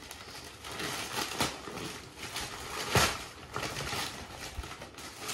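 Gift-wrapping paper being torn open and crumpled by hand: a run of crackly rips and rustles, the loudest rip about three seconds in.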